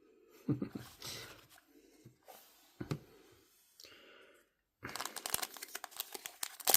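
Light handling of cards, then from about five seconds in a trading card pack's foil wrapper crinkling and tearing open.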